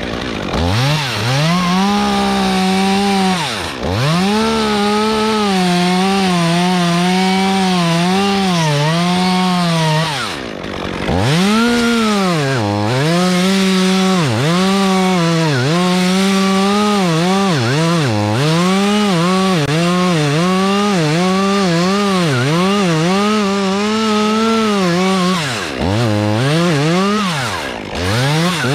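Stihl MS 201 TC top-handle chainsaw running at high revs while cutting through a monkey puzzle trunk. Its pitch sags and recovers over and over as the chain loads up in the wood, and the revs drop away briefly about 4 seconds in, around 11 seconds, and twice near the end.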